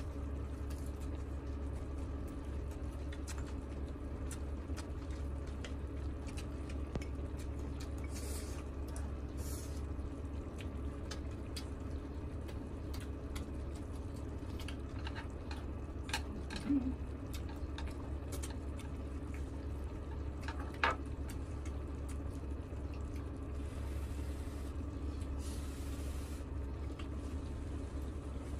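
Beef and octopus in sauce simmering on a hot grill pan: a steady wet bubbling with many small pops over a low hum, mixed with close chewing and chopstick taps. A sharper click stands out about 21 seconds in.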